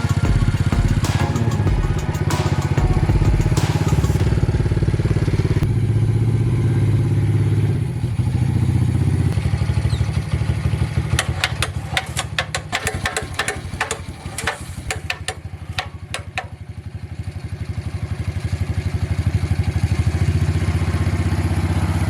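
Homemade mini excavator's engine running steadily, shifting pitch a few times. Midway it drops in level for several seconds while a quick run of clicks and knocks sounds, then it builds back up.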